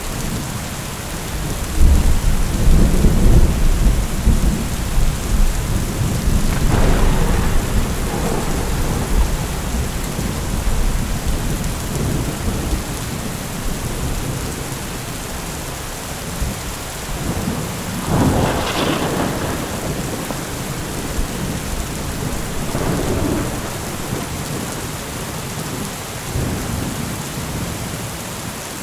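Heavy rain falling steadily, with thunder rumbling in about two seconds in and rolling on for several seconds, and more peals later, the sharpest about two-thirds of the way through.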